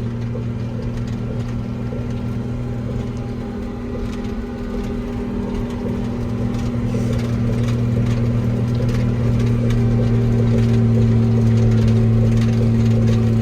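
Ag Bagger silage bagger's engine running steadily at wide open, a constant drone that grows somewhat louder about halfway through.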